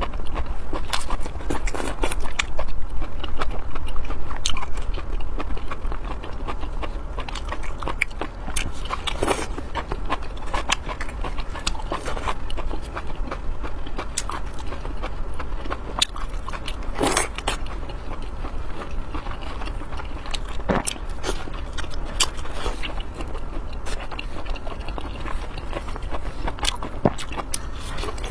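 Close-miked eating sounds: a person biting and chewing food, with irregular wet smacks and clicks, over a steady low hum.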